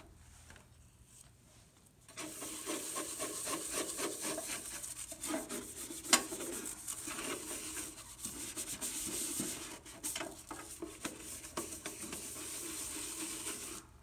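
Small brush scrubbing the soapy outside of a bird feeder's clear panel in quick back-and-forth strokes, starting about two seconds in, pausing briefly now and then. There is one sharp click about six seconds in.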